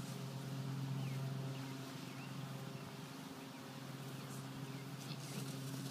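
A steady low mechanical hum with a few faint bird chirps over it.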